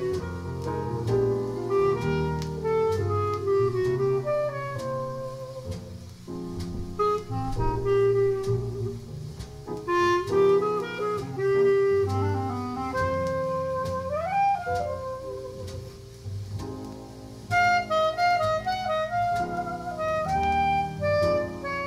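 Jazz from a Diatone demonstration LP played back over a hi-fi system, a reed instrument carrying the melody over bass notes, with one note bent upward partway through.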